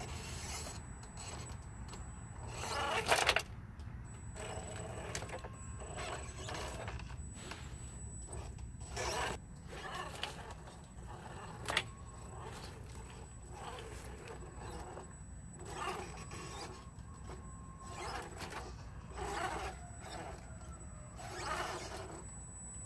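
RC4WD Toyota Hilux scale RC crawler creeping over rocks and wooden beams: irregular squeaks and scrapes from its suspension and tyres, with a faint electric motor whine in stretches. A louder scrape about three seconds in and a sharp knock near the middle.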